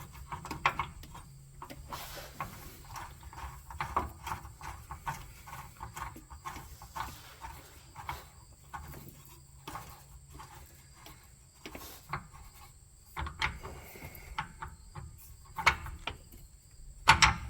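Irregular metallic clinks and knocks of hand tools and bolts being handled around a car's transmission torque arm mount, with a couple of louder knocks near the end.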